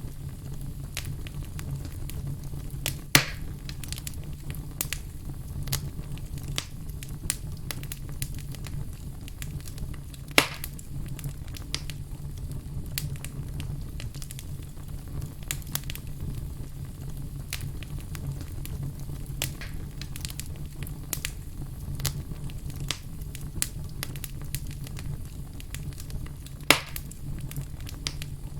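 Log fire burning in a fireplace: a steady low rumble of flames with frequent small crackles and three loud, sharp pops from the wood.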